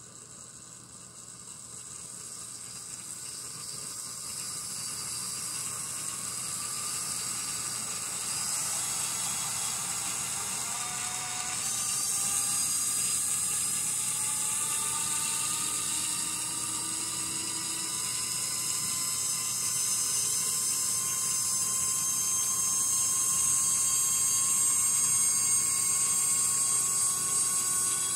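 Model-railroad sound from an MRC Sound and Power 7000 power pack with momentum set: a mechanical whir with hiss whose pitch slowly rises as the power ramps up gradually. It grows louder over the first twelve seconds or so, then holds.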